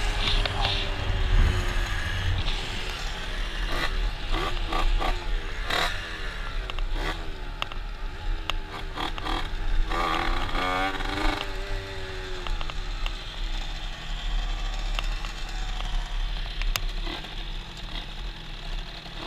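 Two-stroke Aprilia RS motorcycle engines revving up and falling back through gear changes, over wind rumble on the microphone. The engine sound eases off in the last few seconds as the bike slows.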